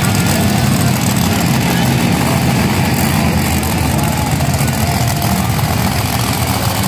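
Monster truck engines running loud and steady as two trucks drive across a muddy dirt track.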